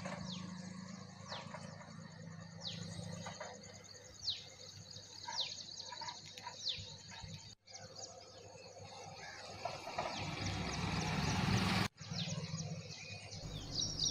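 Birds calling outdoors: a repeated call that falls in pitch, about once a second for the first half, then quicker short chirps, over a low steady rumble. The sound cuts out briefly twice.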